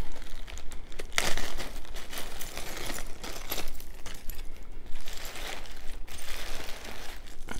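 Clear plastic bags crinkling and beads and metal chains clicking together as hands rummage through a pile of bagged necklaces, in irregular bursts.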